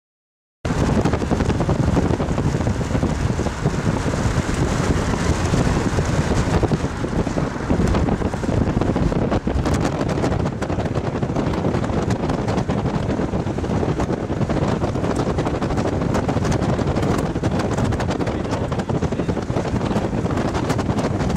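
Strong wind buffeting the microphone: a loud, steady rush of wind noise that cuts in abruptly about half a second in, after a moment of silence.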